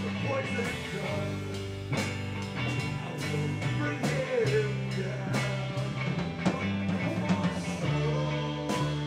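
Live rock band playing, with electric guitar and drums.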